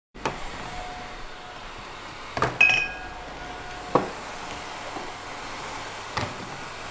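A handful of separate sharp knocks over a steady low hiss. The loudest, about two and a half seconds in, has a short ringing clink in it.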